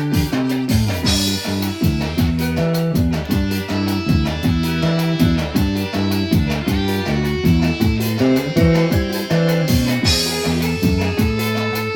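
A band playing music with guitar, bass guitar and drum kit over a steady beat.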